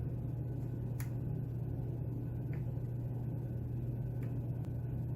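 A few faint clicks as a short hook lock pick probes the pins of a lock held in a false set, over a steady low hum.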